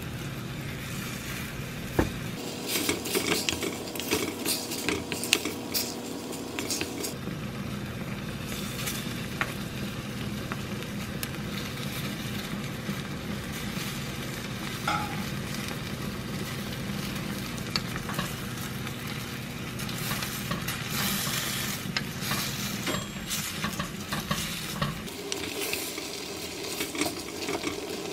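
Food sizzling in an earthenware ttukbaegi pot over a gas burner, with utensils scraping and knocking against the pot as tomato purée and pasta are stirred in. The knocks cluster about two to seven seconds in.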